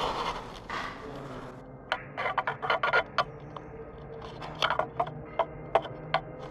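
Irregular sharp clicks, knocks and scuffs on a debris-strewn concrete floor, in two clusters: footsteps of someone picking their way through a narrow bunker passage, after a brief rustle at the start.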